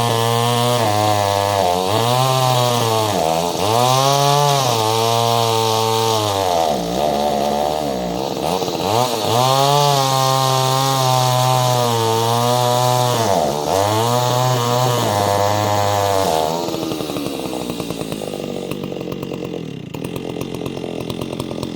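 Ported Solo 670 two-stroke chainsaw running at high revs, the revs dipping and picking back up several times. About three-quarters of the way through it drops to a lower, rougher run.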